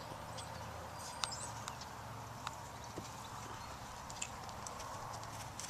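Faint hoofbeats of a horse trotting circles on the dirt of a round pen while being lunged, heard as scattered light thuds and clicks.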